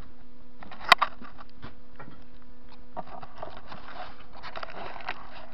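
Hands handling parts and tools at a lathe: a sharp click about a second in, then scattered small clicks with rustling and scraping, over a steady low hum.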